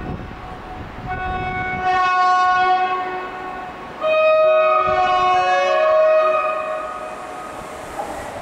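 Horn of an approaching PKP Intercity ED160 (Stadler FLIRT) electric multiple unit. One blast is just ending, then a blast of about two and a half seconds begins a second in. A louder two-tone blast starts at about four seconds and lasts some three seconds, and the train's running noise rises near the end.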